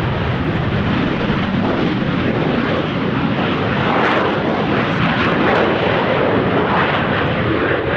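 AV-8B Harrier's Rolls-Royce Pegasus turbofan at high power just after a short takeoff: a loud, steady jet roar, swelling slightly about halfway through.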